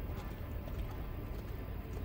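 Wind buffeting the microphone: a steady low rumble that flickers quickly, over faint open-air background noise.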